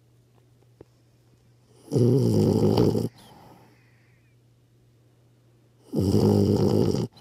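French bulldog puppy snoring in its sleep: two loud snores, each about a second long, the first about two seconds in and the second near the end, with quiet breathing between.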